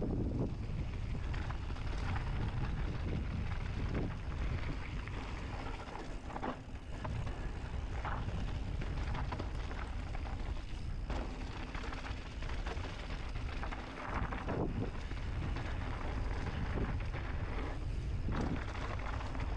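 Mountain bike riding down a dirt trail: tyres rolling over dirt and rock, with wind buffeting the microphone. The bike gives short knocks and rattles over bumps now and then.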